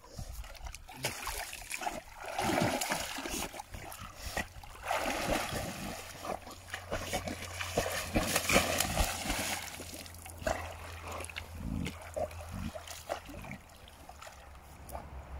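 Water splashing and sloshing as a Rottweiler swims, paddling through muddy pond water. The splashing is heaviest in the middle and dies down near the end.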